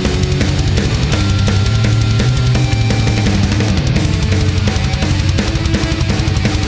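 Loud background music in a heavy rock style, with distorted guitar and a steady, fast drum beat.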